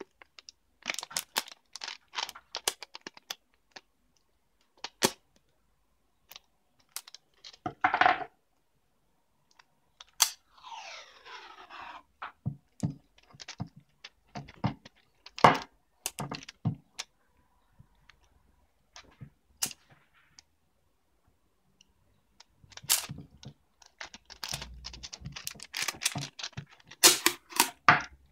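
Thin plastic tape film being handled close up: polyimide (Kapton) tape peeled from its roll and crinkled between the fingers, giving scattered crackles, clicks and short tearing sounds.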